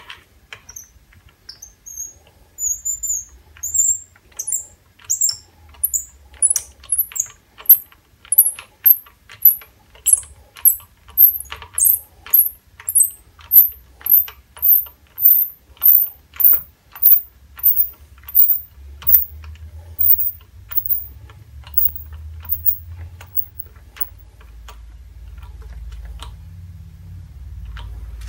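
Hand tap being turned with a tap wrench to cut a thread in a lathe handle: a rhythmic series of short high squeaks with clicks, about one and a half a second, climbing in pitch as the tap goes deeper. The squeaking stops about two-thirds of the way through, and a low hum rises near the end.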